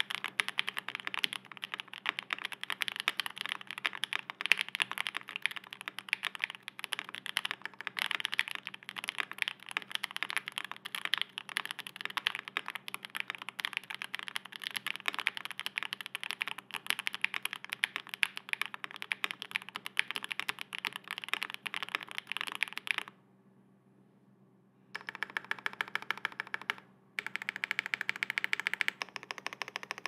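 Fast typing on a Zoom65 EE V2 mechanical keyboard with factory-lubed Rama Duck switches, a carbon-fibre plate, full foam and Domikey WoB keycaps: a dense, steady run of key clicks. The typing stops for about two seconds late on, then resumes with a brief break.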